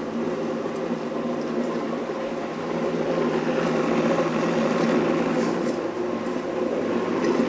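Countertop blender running steadily as it purées a soup, a constant motor hum.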